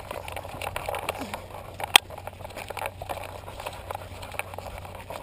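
Handling noise from a camera mounted on a dog's harness: scattered clicks and scrapes as the dog moves, with one sharp, loud click about two seconds in.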